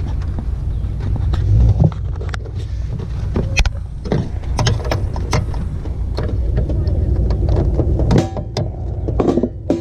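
Pliers working at the small retaining clip on a clutch pedal: many irregular metal clicks and scrapes over a steady low rumble.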